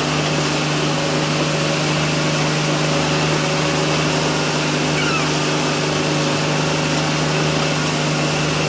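Motorboat engine running at a steady speed, a constant drone under the hiss of water and wind.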